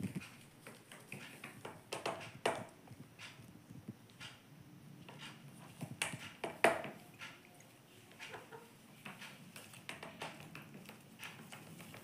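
An Indian ringneck parrot's feet and claws tapping and scratching on a wooden tabletop as it hops and walks about. The taps come irregularly, with a few louder knocks about two and a half seconds and about six and a half seconds in.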